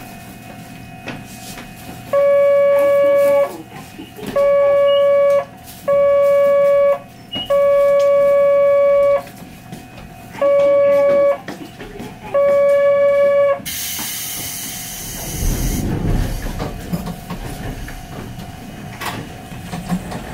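A tram stopped at a tram stop sounds a warning tone: seven steady beeps, each about a second long. About two-thirds of the way through, a short burst of air hiss follows, then a low rumble.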